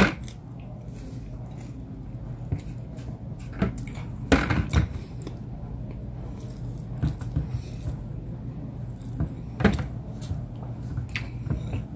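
A person eating lechon and rice with the fingers: chewing and mouth sounds with scattered short smacks and clicks a few seconds apart, over a steady low hum.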